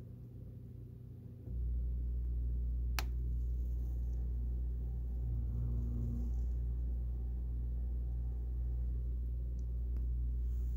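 A low, steady rumble that sets in suddenly about one and a half seconds in, with a single sharp click about three seconds in.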